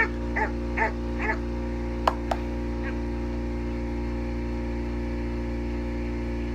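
A small dog yipping four times in quick succession, followed about two seconds in by two sharp clicks, over a steady machine hum with several droning tones.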